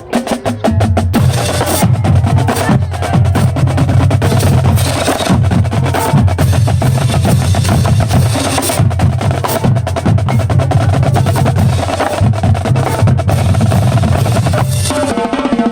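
High school marching drumline playing a fast, dense cadence of rapid snare strokes and rolls over low bass drums. The bass drums drop out shortly before the end.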